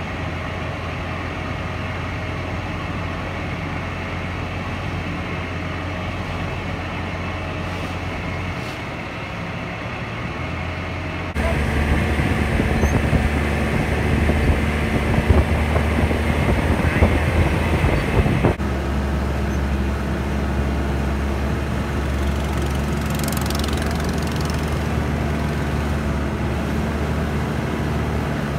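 Wooden motorboat's engine running at a steady drone under the rush of water and wind. The sound changes abruptly twice, getting louder about a third of the way in.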